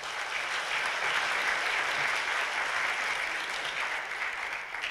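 Audience applauding, swelling up at the start and beginning to die away near the end.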